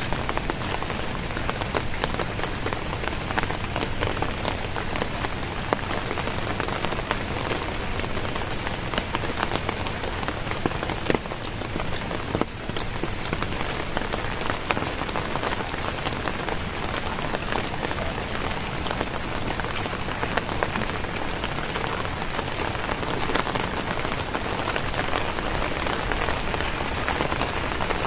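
Very heavy rain pouring down steadily, a dense hiss of drops with many small sharp taps of drops striking surfaces.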